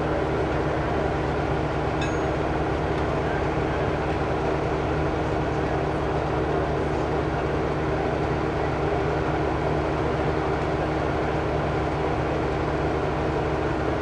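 Fire engine's diesel engine idling with a steady, even drone.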